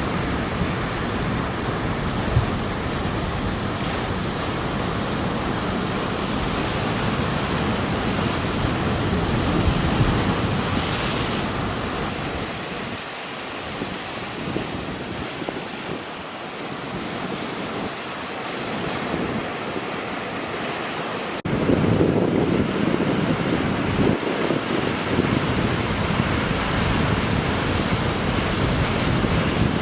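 Ocean surf washing steadily, with wind buffeting the microphone. It dips quieter in the middle, then jumps abruptly louder about two-thirds of the way through.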